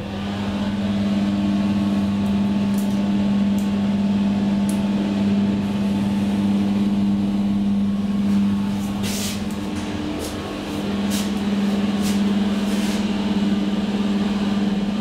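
2012 SMW traction elevator car travelling through its shaft: a steady hum from the lift's drive starts as the car sets off, with a scatter of light clicks and ticks along the way.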